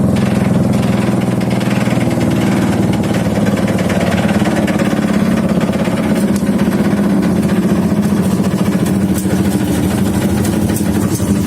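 Chevrolet 350 small-block V8 powering a wood chipper, running steadily at idle.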